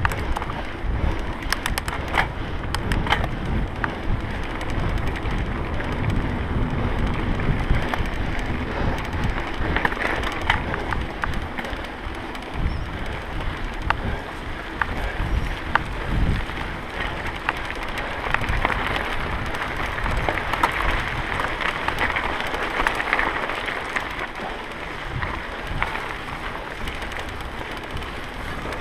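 Mountain bike rolling over a dirt and gravel trail: a steady crunch of knobby tyres with frequent small clicks and rattles from the bike, and wind buffeting the camera microphone.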